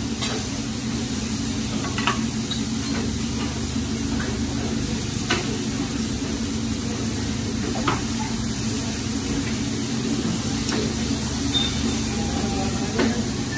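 Chicken and steak sizzling steadily on a hibachi flat-top griddle, with a sharp click of the chef's metal utensils against the steel plate every couple of seconds.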